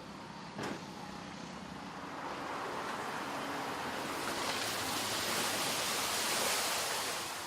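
A Dacia Duster 4x4 off-road, heard as a rushing noise that swells over a few seconds and eases near the end, over a faint low engine note. A single sharp knock comes about half a second in.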